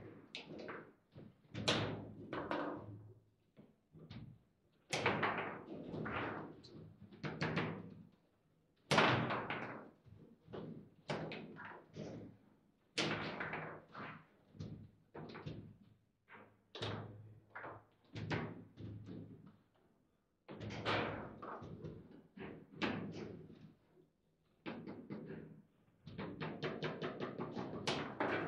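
Foosball table in play: the ball cracking off the figures and the table walls and the rods knocking against their stops, in irregular hard knocks with short gaps between them. A fast run of clatter comes near the end.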